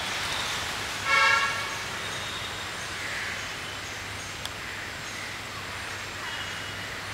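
A vehicle horn honks once, briefly, about a second in, over a steady hum of street traffic.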